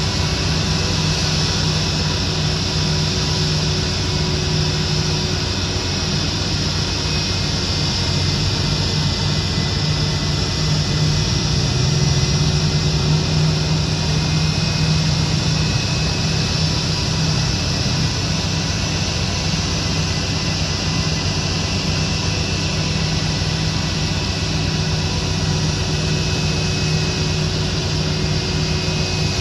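Airbus A319 jet engines running at idle after start: a steady roar with a high whine. A low engine drone underneath swells briefly around the middle.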